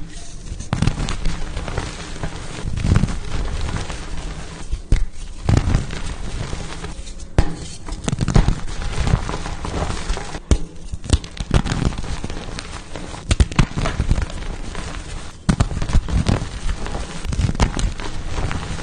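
Blocks of pasted gym chalk being crushed: dense crunching and crackling with many sharp cracks, on and off throughout.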